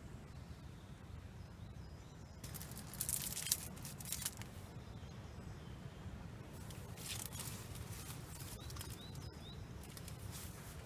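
Woodland ambience: a steady low rumble with three bursts of rustling, and three short rising bird chirps about nine seconds in.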